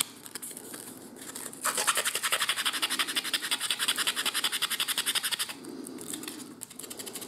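A sanding sponge rubbed back and forth along the edges of a small laser-cut wooden part. The strokes come lightly at first, then as a fast, even run of scratches from about two seconds in until about five and a half seconds, then lightly again. The sanding takes the dark laser-cut surface off the edges that will be glued, leaving a good surface for the glue.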